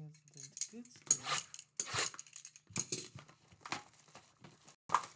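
A shrink-wrapped trading card box being handled and unwrapped: plastic wrap crinkling and cardboard rubbing in a series of short rustling bursts.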